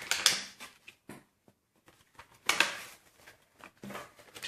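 Toy packaging being handled and opened: short rustles and clicks of plastic and cardboard, the loudest about two and a half seconds in.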